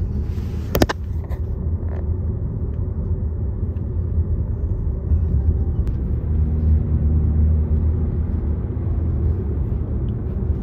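Road noise inside a moving car's cabin: a steady low rumble, with one sharp click about a second in.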